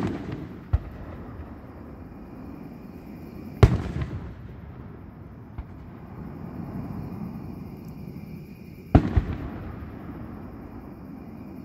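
Fireworks going off out of sight: loud bangs at the start, about three and a half seconds in, and a quick double bang about nine seconds in, each trailing off in a rumbling echo, with a couple of smaller pops between.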